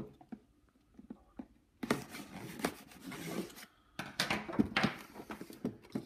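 Cardboard toy box being cut and pried open by hand: a sharp click, then two spells of scraping and tearing cardboard with small knocks, about two seconds in and again about four seconds in.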